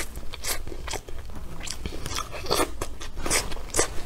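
Close-miked chewing of a mouthful of rice noodles, pork and greens: irregular wet smacks and crisp crunching clicks.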